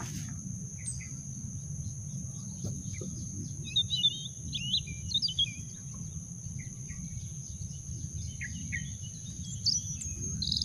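Outdoor ambience: small birds chirping in short calls, a cluster about four seconds in and more near the end, over a steady high-pitched insect drone and a low background rumble.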